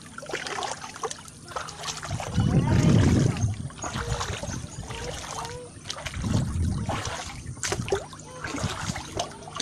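Floodwater trickling and sloshing, with two loud low rumbles, about two and six seconds in, and scattered light clicks.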